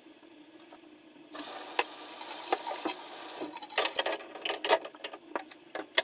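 A cat scratching and digging in its litter box: a dry, rustling scrape with scattered clicks, starting about a second in.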